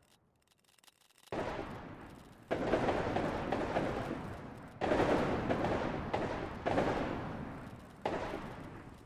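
Distant musket shots, five of them at uneven intervals about one to two seconds apart. Each is a sudden report followed by a long echo that fades away.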